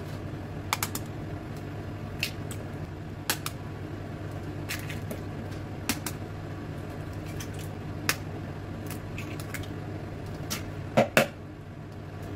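Eggs being cracked into a clear plastic tub: scattered sharp taps and clicks of eggshells against the rim and of the plastic being handled, over a steady low hum. The loudest is a quick double crack about eleven seconds in.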